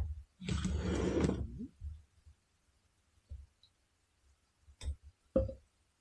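Milk poured into the simmering sauce, a short rushing pour of about a second. Two light knocks follow near the end.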